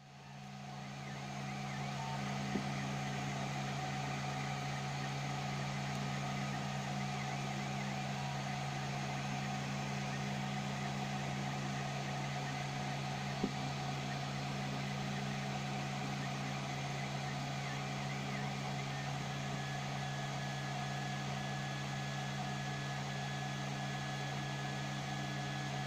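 Tevo Tarantula 3D printer running, a steady whir of cooling fans over a low hum, fading in over the first couple of seconds. There are a couple of faint ticks.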